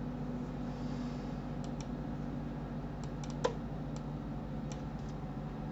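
Scattered clicks of a computer mouse and keyboard, about eight in all, with one louder click a little past the middle, over a steady low hum.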